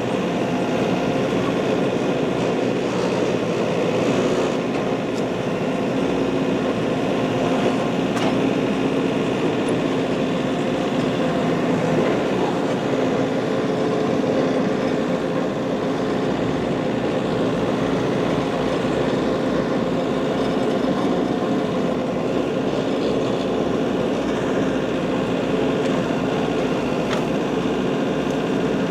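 Engine of compact working machinery running steadily at a constant speed.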